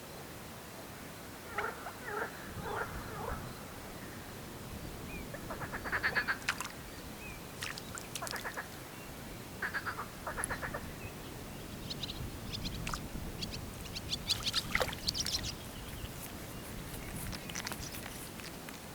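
Animal calls over a steady background hiss: short trains of rapid pulsed calls come in bursts, lower-pitched in the first half and higher, sharper chirps later on.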